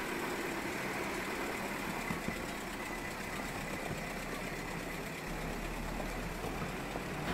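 Early motor car's engine idling steadily, with a couple of light ticks about two seconds in.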